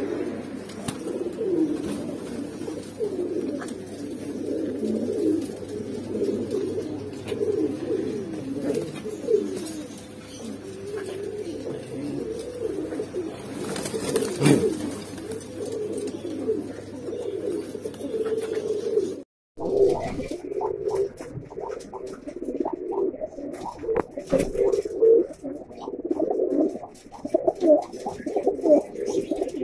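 A flock of caged Mookee pigeons cooing, many coos overlapping continuously, with a brief break about two-thirds of the way through.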